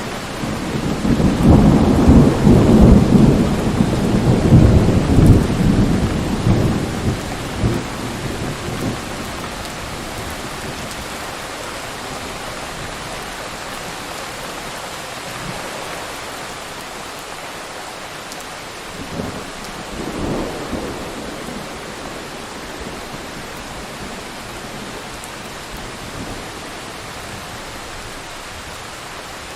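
Thunderstorm: a long, loud rumble of thunder over the first several seconds, then steady rain, with two short, fainter rumbles of thunder a little past the middle.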